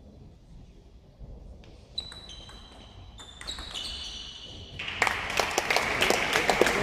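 Table tennis rally: the ball clicks off bats and table every fraction of a second, each hit leaving a brief ring. About five seconds in, the audience breaks into loud applause as the point ends.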